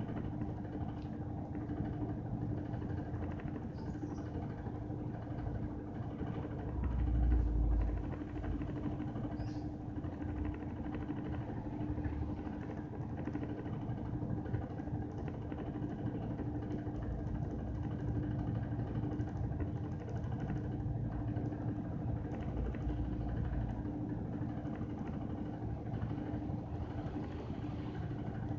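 Washing machine running with a steady, rough hum over a low rumble. The rumble swells briefly about seven seconds in and again about twenty-three seconds in.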